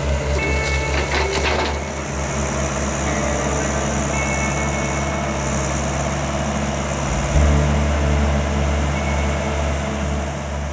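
Excavator engine running steadily, with high squeals and clatter in the first two seconds. The engine note becomes louder about seven seconds in.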